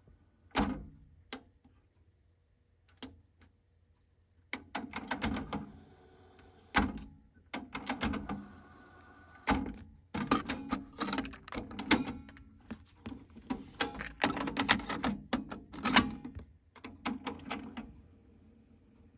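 Kenwood KX-69W double cassette deck's transport keys being pressed and its tape mechanisms engaging: a run of sharp clicks and clunks, sparse at first, then dense from about four seconds in until near the end.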